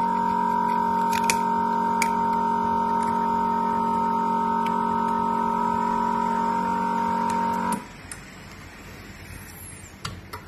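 The screen-separator machine's vacuum pump runs with a steady hum of several fixed pitches, holding the screen down on the heating plate. It cuts off suddenly about eight seconds in, and a couple of faint clicks follow near the end.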